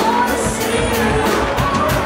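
Band music: singing over guitar and drums with a steady beat.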